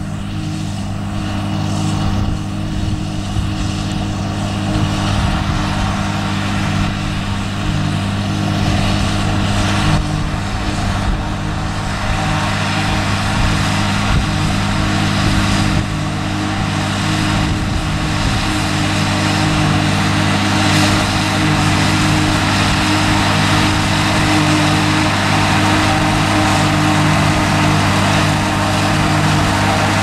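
John Deere tractor's diesel engine running steadily under load as it drives a New Holland FP230 pull-type forage harvester picking up and chopping a windrow of hay, the chopper's whir laid over the engine note. It gets gradually louder as the rig draws near.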